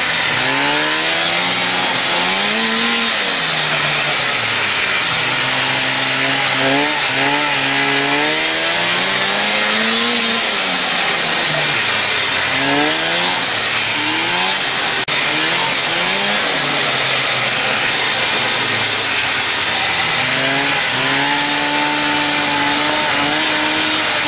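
1996 Polaris Indy snowmobile's two-stroke engine under way, its pitch rising and falling again and again as the throttle is opened and eased, then holding steadier near the end, over a constant hiss.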